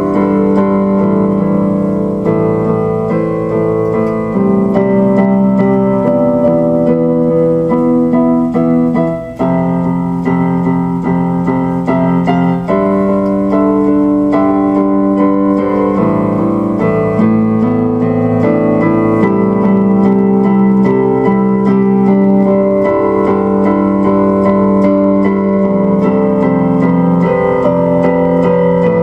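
Piano-style keyboard music playing steadily, with a short break about nine seconds in.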